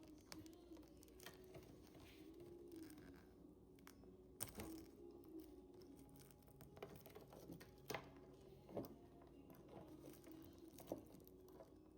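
Faint handling of packaging during an unboxing: soft rustling and crinkling with a few sharp clicks and knocks, the loudest about 4.5, 8, 9 and 11 seconds in.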